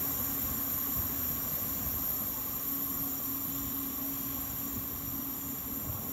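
Passenger train of double-deck coaches and a locomotive pulling away: a steady rumble of the train on the rails with a constant low hum, fading slowly as it moves off.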